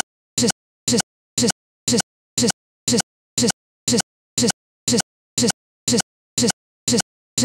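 A digital playback glitch: the same fraction-of-a-second snippet of sound repeats mechanically about twice a second, with dead silence between each repeat, like a stuck recording looping.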